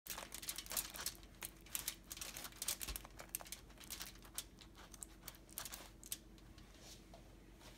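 A metal spoon spreading refried beans over a crisp fried tortilla on a foil-lined baking sheet: an irregular run of faint scrapes, clicks and crinkles that thins out near the end.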